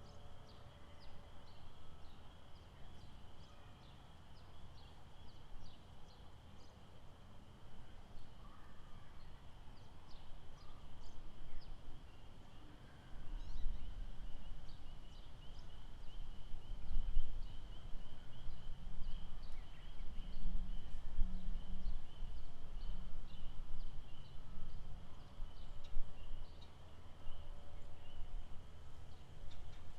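Lakeside nature ambience: a steady high trilling chorus of small animals with many short chirps over it, and a low rumble that grows louder about 13 seconds in.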